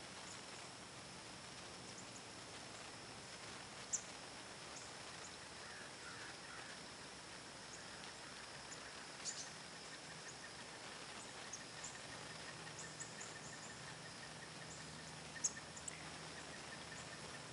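Quiet rural outdoor ambience with scattered short, high bird chip notes and a steady high insect-like tone. A thin, even trill joins about halfway through, and two sharp clicks, one about 4 seconds in and one near the end, stand out as the loudest sounds.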